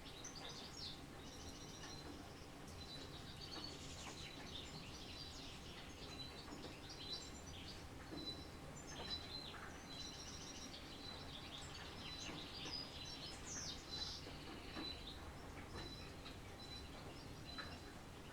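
Several wild songbirds chirping and singing, one repeating a thin high note over and over, above a steady low background hiss.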